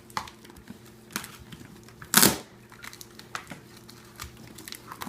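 Cardboard shipping box being pulled open by hand: scattered crinkling and scraping of cardboard, with one louder tearing rip about two seconds in.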